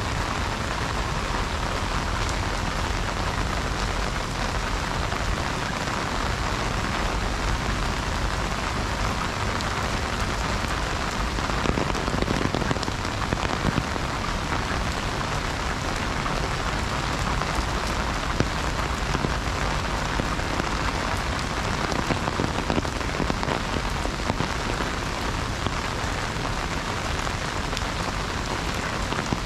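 Heavy rain falling on an umbrella overhead: a dense, steady patter of drops.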